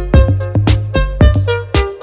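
Background music with a steady drum beat, bass and pitched instrument notes.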